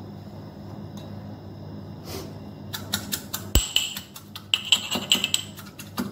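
Metal muddler pounding mint leaves, sugar and lime in a glass to press out the juice: rapid clinking knocks, about four or five a second, that start about three seconds in over a low steady hum.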